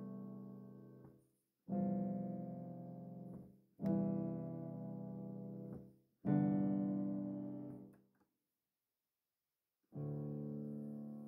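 Slow piano music: a held chord struck about every two seconds, each one fading away, with a pause of nearly two seconds before a last chord near the end.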